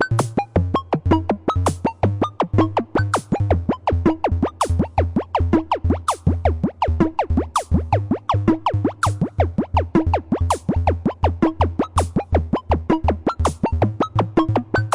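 Playful electronic music: a bouncy synthesizer bass line under quick, short synth notes, with a steady beat.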